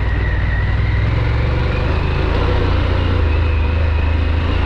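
Harley-Davidson Pan America's 1250 V-twin engine running at a steady pace while riding off road, with a haze of riding noise over it.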